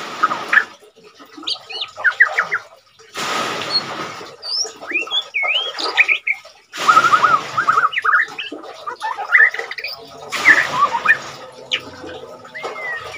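White-rumped shama singing a varied song: quick whistled notes that glide up and down, broken by harsh, scratchy passages about a second long. The bird is in moult and still singing often.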